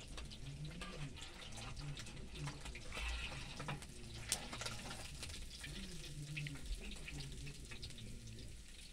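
Fish frying in a pan over an open wood fire: a steady sizzle, with scattered crackles and pops from the food and burning sticks and one louder pop a little past the middle.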